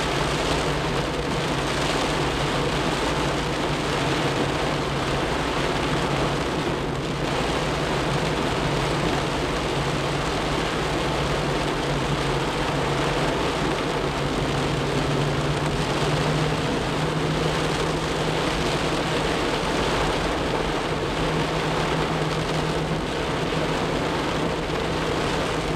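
Heavy rain pelting a car's roof and windshield, heard from inside the cabin as a loud, steady hiss, with the steady low hum of the moving car underneath.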